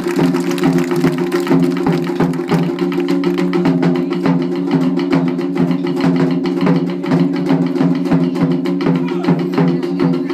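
Taiko drums played in a fast, steady rhythm, with many even strokes a second.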